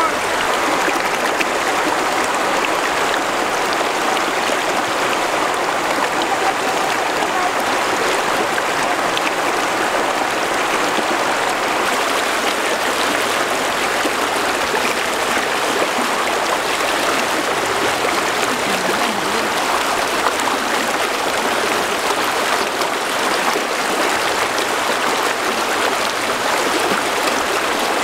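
Shallow rocky river rushing over stones and small rapids, a steady, even flowing noise.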